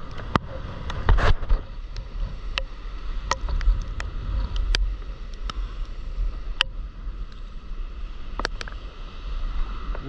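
Sea water splashing and slapping around a stand-up paddleboard, with a louder splash about a second in and scattered sharp ticks of drops, over a steady low wind rumble on the microphone.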